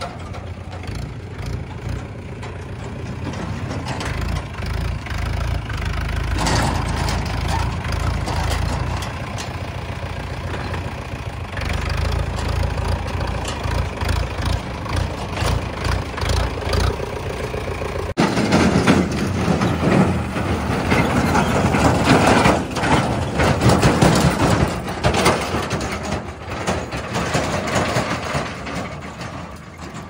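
Mahindra 475 DI tractor's diesel engine running with a heavy low rumble as it works with a loaded trailer. About eighteen seconds in the sound changes abruptly to a louder, noisier diesel engine sound.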